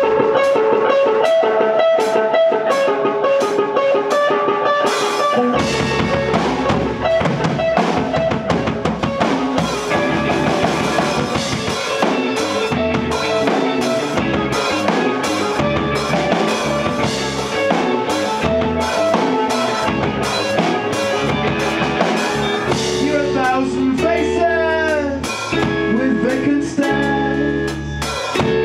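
Rock band playing live: electric guitars over a drum kit with a steady beat. Low bass notes join about five seconds in, and a lead singer comes in near the end.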